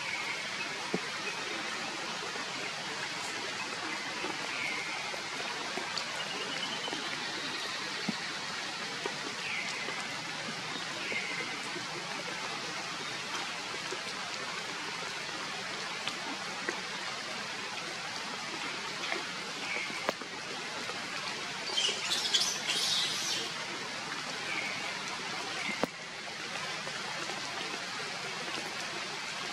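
Steady rain falling in forest, with short bird chirps scattered over it and a brief louder burst of high calls about twenty-two seconds in.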